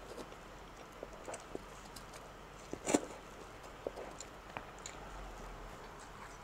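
A person eating instant noodles: quiet chewing with scattered small clicks and taps, and one louder sharp sound about three seconds in.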